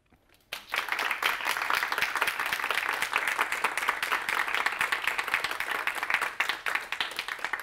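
Audience applauding, starting about half a second in and thinning out near the end.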